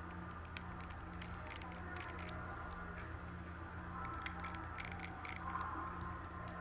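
Scattered light clicks and taps of small repair tools on an iPhone 6s's tiny internal screws and parts, over a steady low hum.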